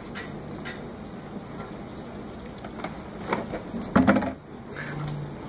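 Large empty plastic container knocked and pushed about by a puppy nosing inside it: scattered light clicks, then a loud clattering knock of plastic about four seconds in.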